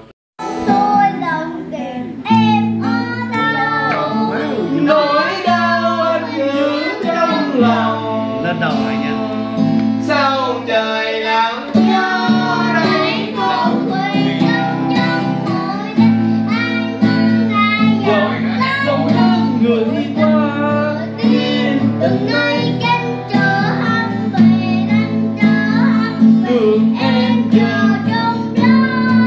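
A young boy singing along to a strummed acoustic guitar, starting about half a second in.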